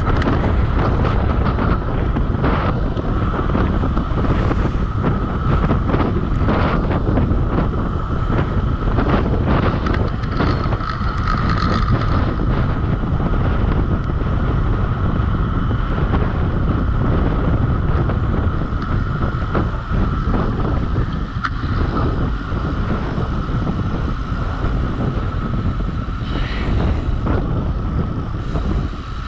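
Wind buffeting the microphone during a fast downhill ride: a loud, steady rumbling roar with a thin constant whine.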